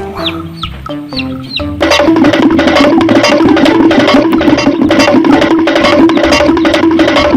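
Background music: a few short falling chirps and notes, then about two seconds in a loud, upbeat track with a steady percussive beat and a repeated note.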